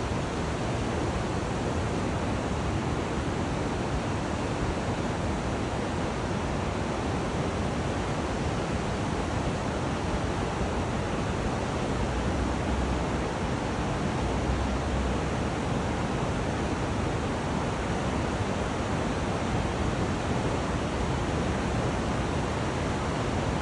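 Steady rushing of the Chattahoochee River's water, an even, unbroken hiss, with a little low wind rumble on the microphone.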